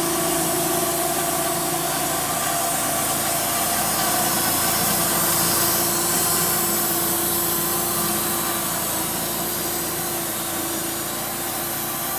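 Homemade sawmill running and its blade cutting slowly through a dry walnut slab, a steady sound with a hollow note from the blade, which comes from the wood being dry and hard to cut through.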